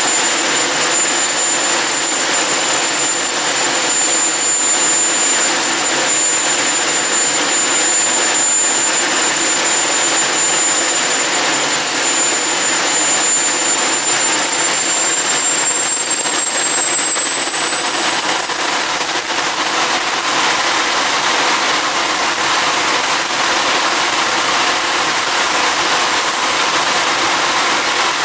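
Homemade turbojet engine (HX Monster mark 2) running steadily on its first test run: a loud, continuous jet rush with a high-pitched turbine whine, which climbs slightly in pitch a little past halfway through and then holds.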